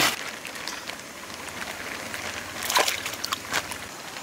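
Water sloshing and splashing, loudest right at the start, with a few sharp clicks about three seconds in.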